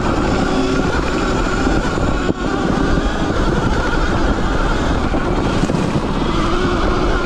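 Sur-Ron electric dirt bike riding along a leaf-covered dirt track: a steady drivetrain whine over the rumble of knobby tyres and wind on the handlebar-mounted camera, with a brief drop about two seconds in.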